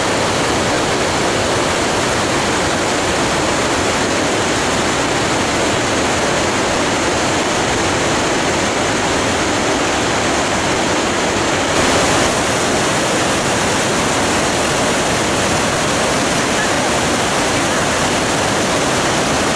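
Glacier-fed mountain torrent rushing over boulders: a loud, steady rush of white water, a little brighter from about twelve seconds in.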